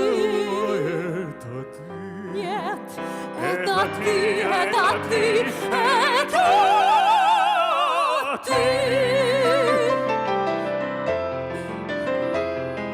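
Female and male operetta voices singing the closing phrase of a duet in wide vibrato over accompaniment, with one voice climbing to a long high held note. The singing breaks off about eight and a half seconds in, and the accompaniment plays sustained closing chords.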